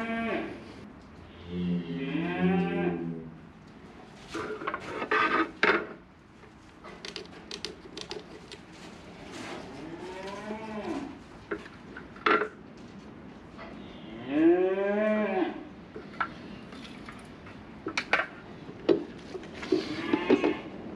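Young cattle mooing, about six separate calls spread through, some drawn out, with a few short knocks in between.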